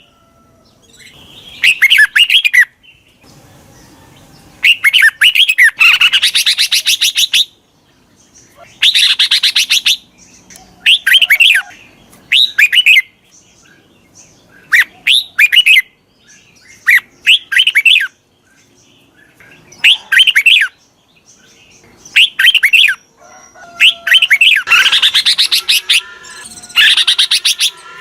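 Red-whiskered bulbuls singing: short bubbly whistled phrases repeated every second or two, mixed with several longer harsh chattering calls.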